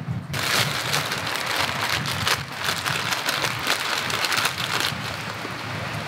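Heavy rain pattering steadily, a dense hiss of many small drop hits that starts abruptly just after the beginning.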